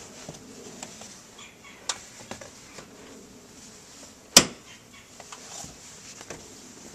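A 2004 Toyota Camry's rear seat bottom cushion being pressed and knelt on as it is refitted: rustling and light knocks, a click near two seconds in, and one sharp snap about four seconds in as the cushion's clips latch.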